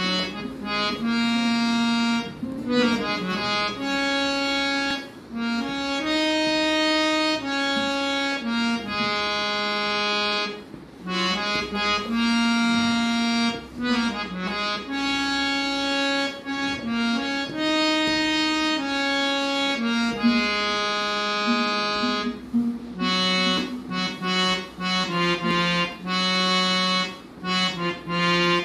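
Harmonium playing a melody of held reed notes that step from pitch to pitch, breaking into quicker runs of notes near the end.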